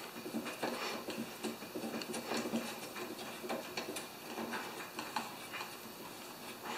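Hands handling the control cables and a plastic cable clip on a push mower's handlebar: light, irregular clicks and rubbing.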